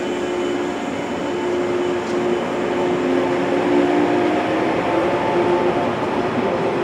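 Electric train running at a station, its motors whining in several steady tones, some rising slightly in pitch partway through, over the rumble of the cars.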